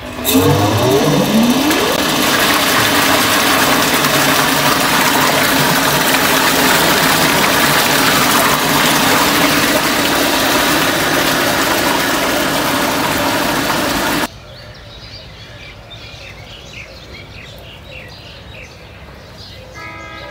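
Water pump motor starting up with a rising whine, then running steadily while water gushes from a plastic pipe into a concrete tank. The sound cuts off abruptly about 14 seconds in, leaving faint birds chirping.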